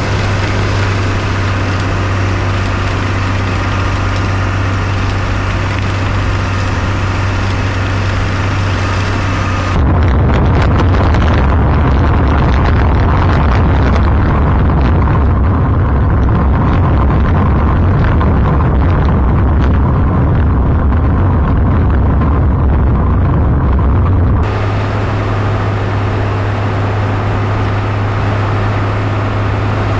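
1998 Bombardier BR-160 snowcat running steadily while plowing snow with its front blade, a steady low engine hum. From about ten seconds in until near the end the sound turns louder, rougher and more muffled as it is heard up close at the blade, then returns to the steady hum.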